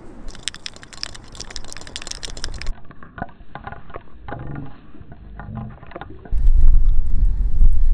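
Plastic fishing-line spool spinning on a screwdriver shaft as line is wound off it onto a baitcasting reel, making rapid rattling clicks. From about six seconds in, wind buffets the microphone, louder than the clicking.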